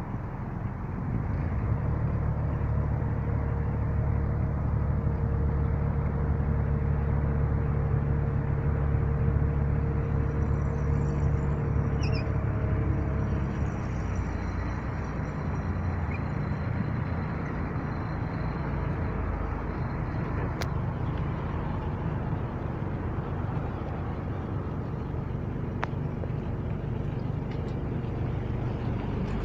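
An engine running steadily with a low drone, louder for the first dozen seconds or so, then easing off a little.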